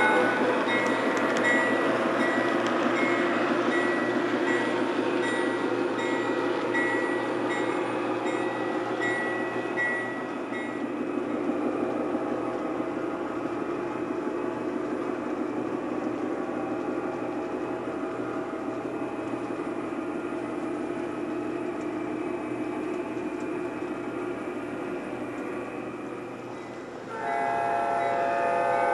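O scale model diesel locomotive's onboard sound system and the train running on the track: a horn chord ends as it starts, a bell rings steadily for about the first ten seconds, then a steady running rumble fades slowly as the train moves away. About two seconds before the end the horn blows again, louder.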